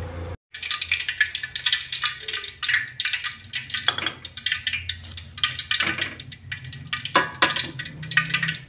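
Hot cooking oil crackling and sizzling in a wok after fried fish have been lifted out, the heat turned off. There are a few louder knocks among the crackle.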